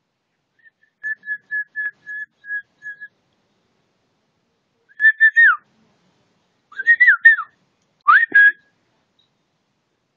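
Clear whistled notes: a run of about eight short notes on one pitch, then, after a pause, three short phrases that swoop down and up.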